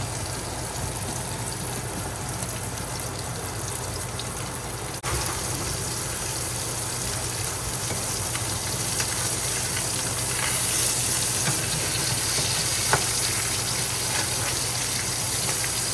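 Hybrid striped bass fillets frying in butter in a pan, giving a steady sizzle that grows a little louder in the second half.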